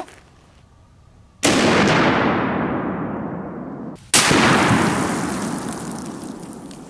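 A .50 BMG rifle firing an armor-piercing incendiary round about one and a half seconds in: one very loud report with a long echo that fades over a couple of seconds. Just after four seconds comes a second equally loud blast, the shot heard beside the target as the round strikes a steel anvil, which dies away slowly.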